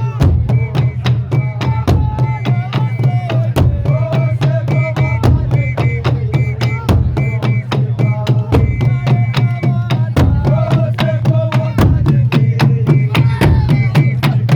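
Music with a steady, quick drum beat, a constant deep bass tone underneath and a melody line on top.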